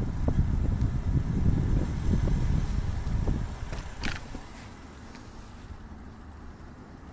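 Wind buffeting the microphone and tyre rumble from a bicycle being ridden. The rumble drops off about three and a half seconds in as the bike slows to a stop, and a short high squeal comes about four seconds in.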